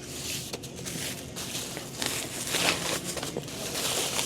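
Irregular rustling and crackling broken by small clicks and knocks, as things are handled.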